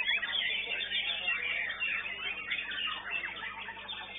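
Caged songbirds singing competitively: many birds at once, a dense run of rapid overlapping whistles and chirps.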